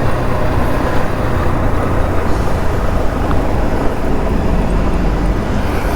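Steady rush of wind on a moving motorcycle's microphone, with the motorcycle's engine and road noise underneath.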